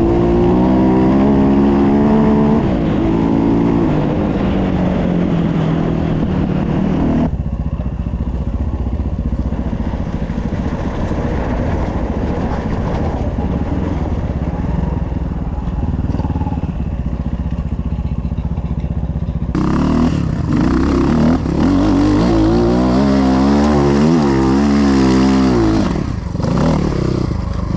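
Dirt bike engine revving up and down under load on a hill climb. About seven seconds in the sound drops abruptly to a duller, steadier running, and near twenty seconds it switches back to loud revving that rises and falls.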